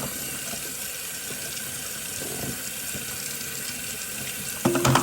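Water running steadily from a tap, with a couple of short knocks near the end.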